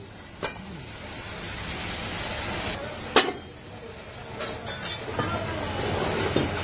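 A last hammer blow on an aluminium kadhai's handle about half a second in, then a steady noise with one sharp knock a little after three seconds.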